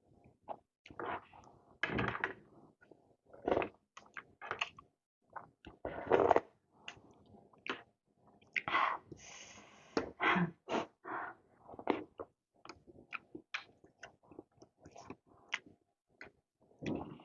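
Close-miked eating sounds: irregular slurps and chewing of spicy soup noodles, with scattered short clicks and knocks.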